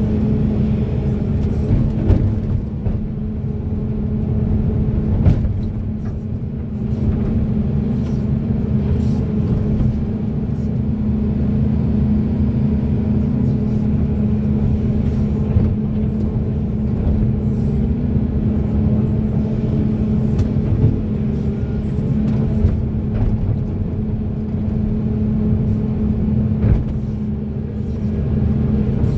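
Large hydraulic excavator's diesel engine running steadily with a constant deep hum, with scattered short clicks and knocks over it.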